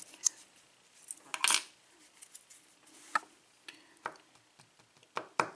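Small metal parts of a disassembled pin-tumbler lock cylinder clicking and tapping as the plug and pins are handled: a handful of separate light clicks, with a short scrape about a second and a half in and the sharpest click near the end.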